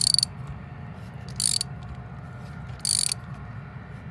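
Socket ratchet wrench clicking in three short runs about a second and a half apart, its back-strokes while tightening a new coolant temperature sensor into the engine.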